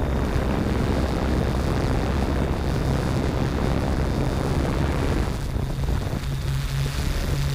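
Yuneec Typhoon G quadcopter's motors and propellers humming steadily in flight, heard from on board, with rushing wind noise on the microphone that eases a little about five seconds in.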